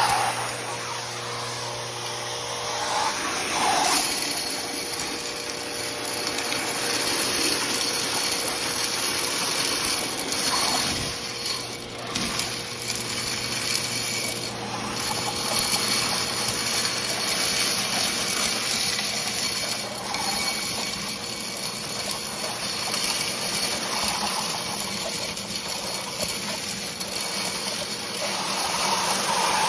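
A 25 hp industrial central vacuum sucking steel blast shot up a steel wand on a 3-inch hose: a steady rush of air with thin whistling tones, and the metal pellets rattling as they are drawn up the tube.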